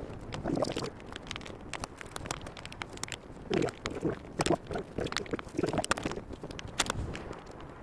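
A wrench working loose the brake booster's mounting nuts: irregular metallic clicks and clinks, with a few duller knocks now and then.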